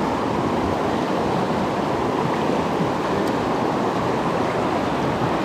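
Creek water rushing steadily over a riffle, a constant even noise.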